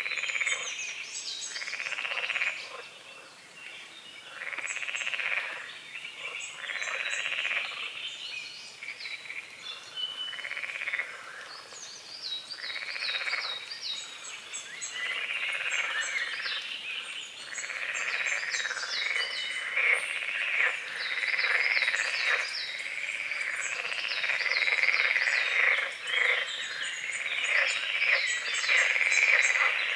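Frogs croaking in a chorus, their calls coming about every two seconds at first and then overlapping more densely in the second half. Birds sing short, high chirps over them.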